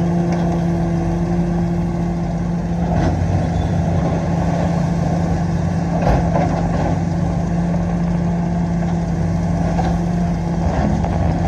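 Komatsu PC450-8 LC excavator's diesel engine running steadily under work, with a few knocks along the way.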